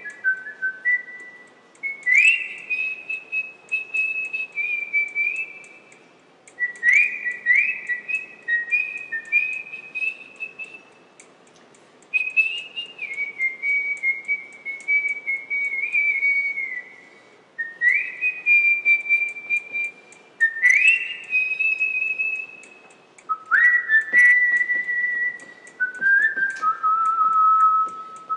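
A person whistling a slow tune in phrases of a few seconds, held notes stepping up and down with sliding starts, with short pauses between phrases. Faint light clicks sound now and then underneath.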